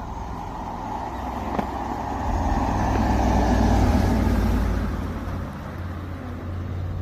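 A car's engine and tyre noise, a low rumble that swells to a peak about four seconds in and then eases off.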